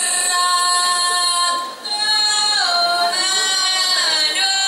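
Female voices singing long, held notes of a traditional Indonesian dance song, with a brief break about a second and a half in and a slide down in pitch soon after.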